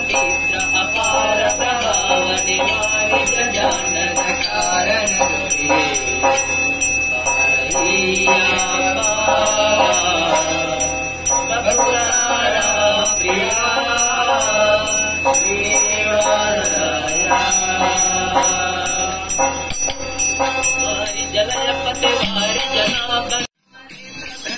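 Devotional song: a voice singing over music with a steady, fast jingle of small bells. The sound cuts out abruptly for a moment near the end.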